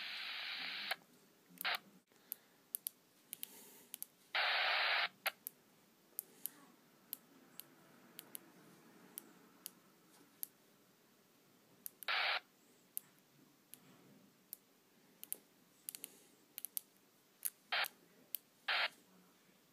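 Yaesu VX-8 handheld ham radio transceiver: hiss from its speaker that cuts off sharply about a second in, then several short bursts of hiss as the squelch opens and closes. Many light clicks of its buttons and controls being worked run throughout.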